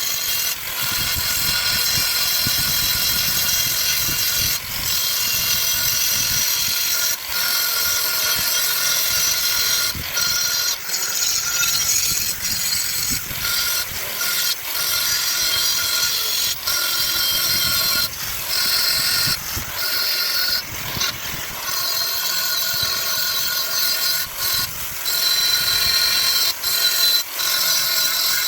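A power saw cutting through material, running steadily with many brief dips and short pauses as it works slowly through the cut.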